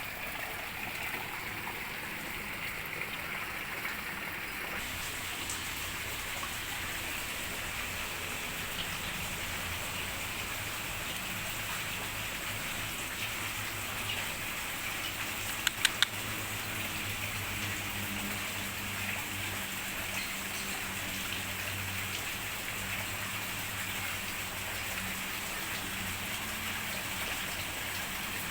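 Steady splashing of running water with a faint low hum underneath. Three sharp clicks come close together a little past halfway.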